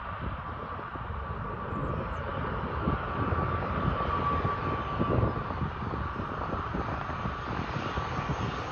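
Aer Lingus airliner on approach to land, its engines running with a steady high whine over a broad rumble that slowly grows louder as it comes closer.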